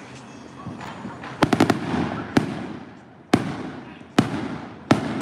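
Fireworks exploding: a quick run of about four cracking reports, then single bangs roughly once a second, each trailing off in an echo.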